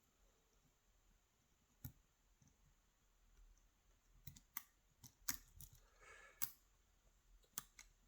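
Faint, scattered clicks of a lock pick working the pins of a pin-tumbler mortise cylinder under tension, with a brief scrape of metal about six seconds in. The clicks are pins setting or dropping as the serrated pins catch on the core.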